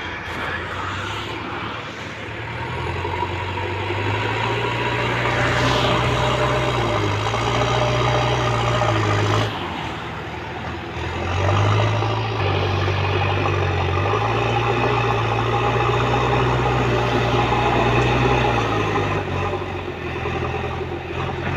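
JCB 3DX backhoe loader's diesel engine running under load as the front bucket pushes earth, revving up a few seconds in, dropping back briefly about ten seconds in, then revving up again.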